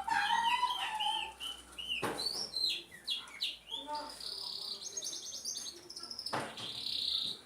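A bird chirping with quick high whistled calls, then a run of rapid high repeated notes in the second half, with a couple of short knocks in between.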